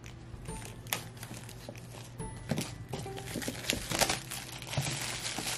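Clear plastic shrink wrap being peeled off and crinkled from an iPad Pro box: scattered crackles at first, growing denser and louder about halfway through. Music plays underneath.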